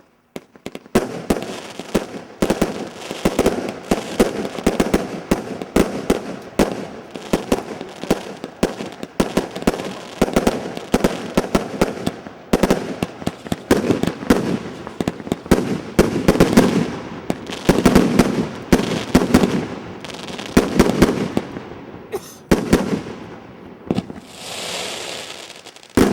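Multi-shot fireworks battery (cake) firing a rapid, continuous barrage of launches and bursting cracks for over twenty seconds. The shots stop shortly before the end, leaving a brief softer hiss.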